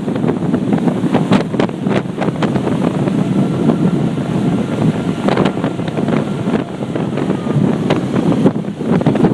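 Storm wind of 60-plus mph buffeting the microphone in constant gusty crackles, over the rush of large storm waves breaking on the shore.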